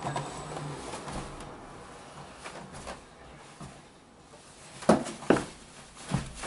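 Footsteps and knocks of a rider on a Ninebot One S2 electric unicycle on a carpeted floor: soft scuffing, then two sharp thumps about five seconds in, half a second apart, and another near the end as a boot comes down beside the wheel.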